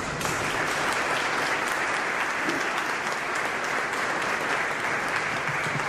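Audience applauding, a steady clapping of many hands that starts right after the speaker's closing thanks.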